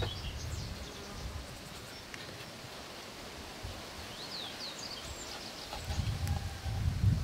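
Birds chirping with short high calls, and about six seconds in a low rubbing rumble as dough is rolled by hand on a wooden board.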